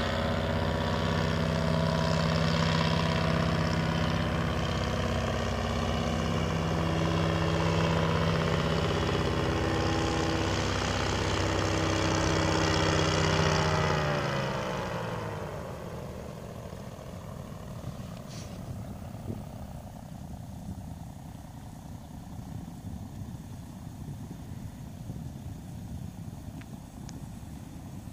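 Paramotor engine of a powered paraglider running steadily overhead, then shut off in flight as an engine-out test about halfway through: its pitch falls as it spins down and stops. Only a low wind rumble is left afterward.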